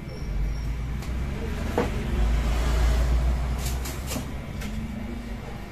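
A low rumble that swells in the middle and fades, with a few sharp clicks and knocks as the TV panel is handled on the bench: one about two seconds in and a quick cluster of three near four seconds.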